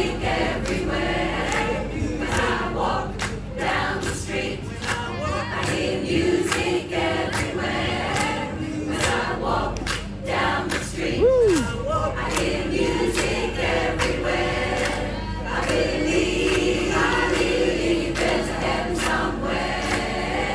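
Choir of mixed voices singing in harmony, the words unclear; a little past the middle one voice slides up and back down in pitch.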